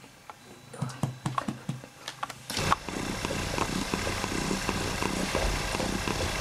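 Cats purring while being stroked: at first a faint purr with a few small clicks, then from about two and a half seconds in a much louder, closer purr.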